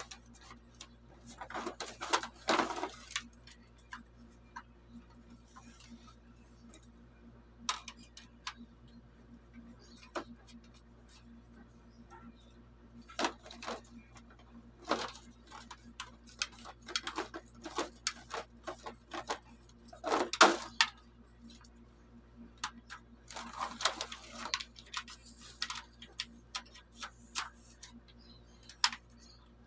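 Scattered clicks, knocks and short scrapes of hard plastic as a toy gel blaster and its parts are lifted out of a styrofoam packaging tray and handled.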